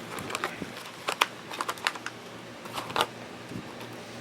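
Irregular clicks and crackles of a box of trading cards being opened and handled by hand, with the sharpest clicks about a second in and about three seconds in.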